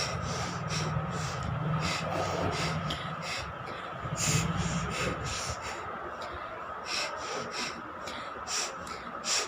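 A woman blowing air hard out through her nose in short, irregular dry puffs and breaths; she has no cold, so nothing clears.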